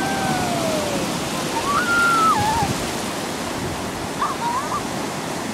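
Ocean surf washing in at the shoreline, a steady rushing wash of water, with a few faint high gliding calls over it, one about two seconds in.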